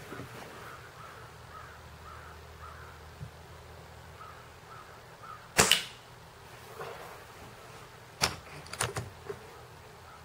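Crosman Quest spring-piston pellet air rifle firing once about five and a half seconds in, a single sharp crack. A few shorter clicks follow near the end.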